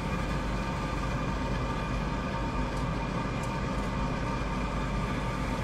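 Squirrel-cage blower fan running steadily as a fume extractor, pulling air hard: an even rush of air with a few faint steady tones.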